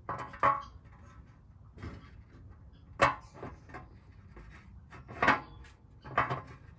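Metal transmission pan knocking against the transmission as it is angled up into place, a handful of separate clunks with a little ring, the loudest about half a second in and about three seconds in.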